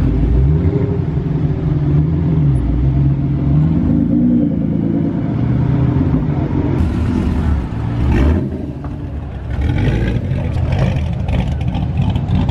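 Nissan GT-R's twin-turbo V6 revving as the car pulls away, its note rising and falling in pitch. The engine sound dips briefly about eight seconds in, then picks up again with some crackling near the end.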